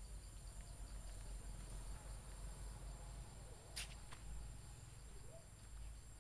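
Steady high-pitched insect buzzing over a faint low rumble, with one sharp click about four seconds in.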